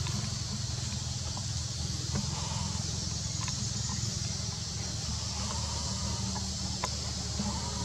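Outdoor ambience among trees: a steady low rumble under a steady high hiss, with a few faint clicks scattered through.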